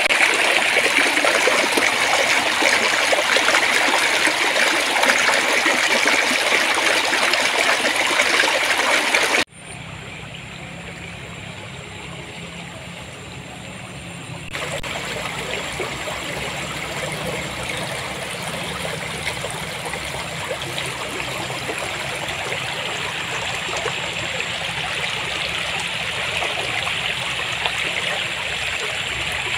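Shallow stream water flowing and babbling in a steady rush. About a third of the way in it cuts abruptly to a quieter, deeper-sounding flow. A few seconds later a brighter trickling rush returns.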